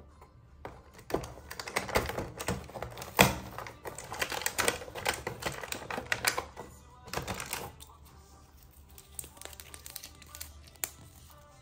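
Quick clicking and rattling from small fidget toys and their packaging being handled: dense clicks for several seconds, then a few scattered clicks near the end.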